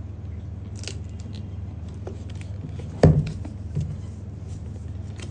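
Hands handling a cardboard perfume box, trying to slide its tight outer sleeve off, with light rustling and scraping of card. There is a sharp knock about three seconds in and a smaller one just after, over a steady low hum.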